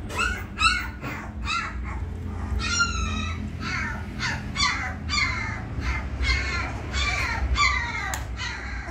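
Three-week-old Labrador puppies whining and squealing: a run of short, high-pitched cries, about two a second, many of them falling in pitch.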